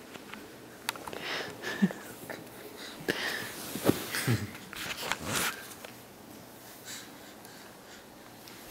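Baby's breathy, wheezy laughs and gasps in a string of short bursts over the first five seconds or so, then they stop.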